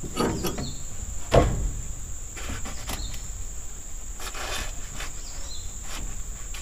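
Crisp rustling and crackling as an old cabbage is handled and its leaves pulled back to check whether it is still good, with a single thump about a second and a half in. A steady high-pitched insect drone with short chirps sits underneath.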